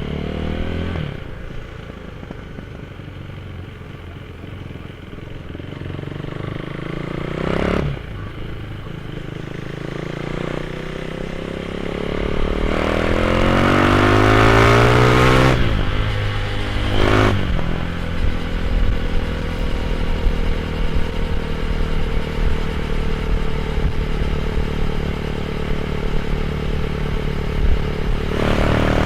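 Motorcycle fitted with a GPR aftermarket exhaust, ridden and accelerating through the gears. The engine note climbs and breaks off at each gear change, about a second in, near 8 seconds and near 16 seconds, with the loudest, fastest climb just before the third. It then settles into a steadier, slowly falling note, with another shift near the end.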